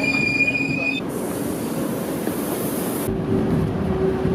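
Train noise on a station platform: a steady high tone for about a second, then a high hiss for about two seconds, then a steady hum starting about three seconds in.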